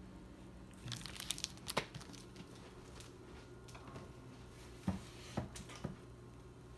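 Paper rustling and crinkling as a hardcover book and its dust jacket are handled, then three soft knocks near the end as books are pushed back onto a wooden bookshelf.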